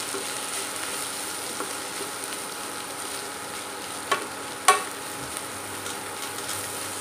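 Leafy greens and onion sizzling gently in a stainless steel pan as they are stirred with a spatula. A little past four seconds in, two sharp knocks about half a second apart, the spatula striking the pan.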